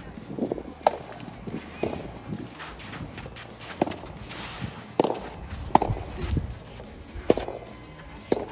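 Sharp pops of a rubber soft tennis ball struck by rackets and bouncing on the court during rallies, about seven hits at uneven intervals, over background music.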